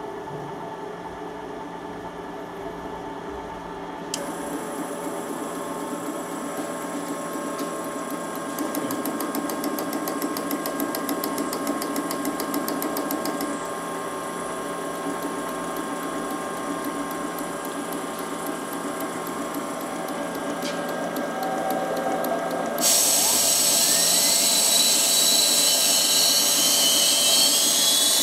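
Tripet MUS 100 internal grinding machine running: a steady motor and drive hum, joined about four seconds in by a high-pitched whine. About 23 seconds in it becomes suddenly louder, with a whine that rises in pitch toward the end.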